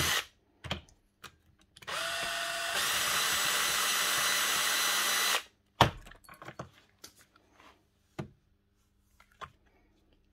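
Makita cordless drill's motor, run with its cut-down seized chuck gripped in a vise. After a short burst it spins up with a rising whine and runs steadily for about three and a half seconds, unscrewing the chuck from the spindle, then stops abruptly. A sharp knock follows as the chuck comes free, then a few light clicks.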